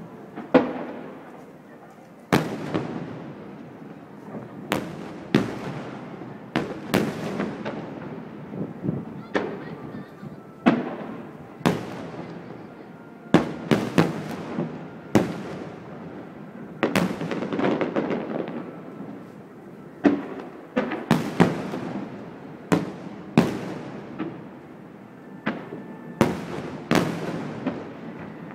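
Aerial fireworks shells bursting in a steady barrage: sharp bangs about once a second, each echoing away, over a continuous rumble.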